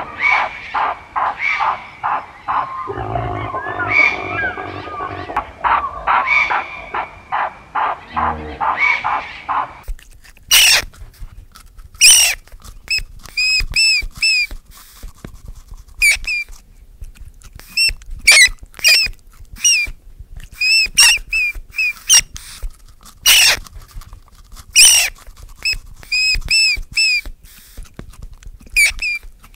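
For about ten seconds a busy mix of rapid, repeated animal calls. Then it switches abruptly to a meerkat's short, high chirping calls, mostly in twos and threes, with sharp clicks between them.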